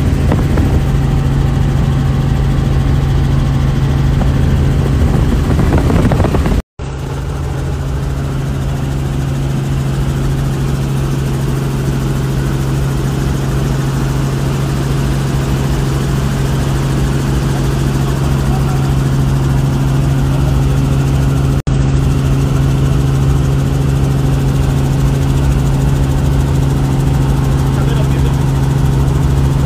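Helicopter cabin noise in flight: the engine and rotors drone steadily with a strong low hum, broken twice by brief gaps, about 7 seconds in and again near 22 seconds.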